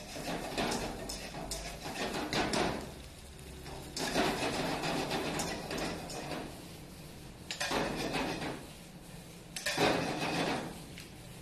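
Metal ladle scraping and clanking against a wok while pasta is stir-fried, in four bursts a second or two apart with quieter gaps between.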